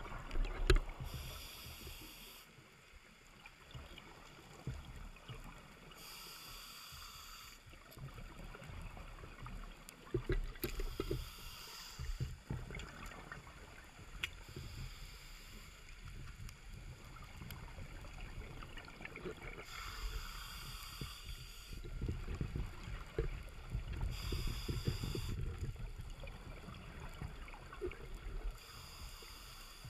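A scuba diver breathing through a regulator, heard underwater: a hiss on each inhale about every four to five seconds, with the low rumbling bubbles of exhaled air in between.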